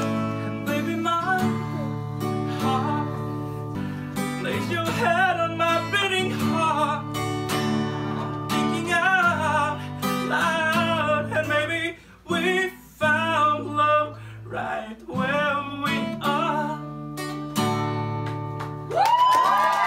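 Acoustic guitar strummed and picked, with a man singing along over it; the playing drops out briefly a couple of times past the middle.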